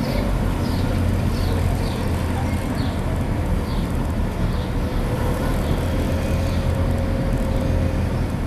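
Steady low engine and road rumble heard from inside a car driving slowly along a street. Short faint high chirps come through in the first few seconds.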